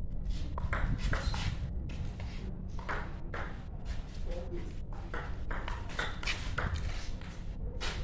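Table tennis ball in a fast rally, clicking off the bats and bouncing on the table several times a second, over a steady low rumble.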